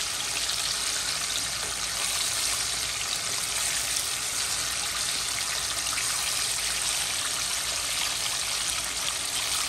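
Flour-coated chicken strips deep-frying in hot oil: a steady, even sizzle.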